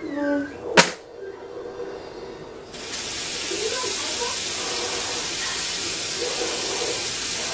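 A single sharp click about a second in, then a kitchen faucet is turned on and water runs steadily into a stainless steel sink, splashing on a plate in the basin.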